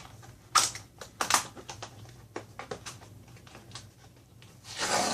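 Hands handling things: a few sharp clicks and taps, then fainter ticks, and a brief rustle near the end.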